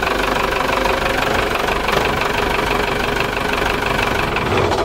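Yanmar mechanical marine diesel engine idling steadily with a regular clatter, heard up close in the engine compartment.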